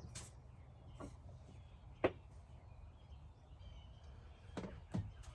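Several short bird calls, each sliding down in pitch, about two seconds in and twice near the end, over a low steady hum.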